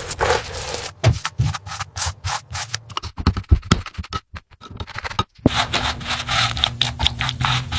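Abrasive rubbing and scraping, like sanding a surface by hand, in quick irregular strokes. There is a short break about five seconds in, after which the rubbing runs more steadily.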